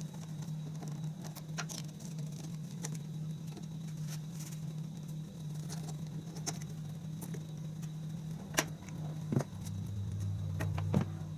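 Scattered light metallic clicks and taps of hand tools and parts being handled on the tractor, over a steady low hum. A second, deeper hum joins in about ten seconds in.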